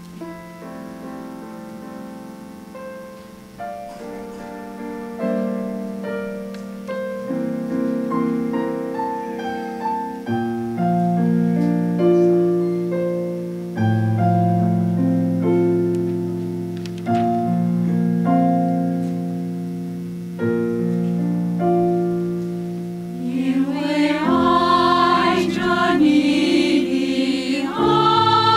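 Piano accompaniment playing a slow, chordal introduction, each note striking and fading; about 24 seconds in, the mixed choir enters singing and the music gets louder.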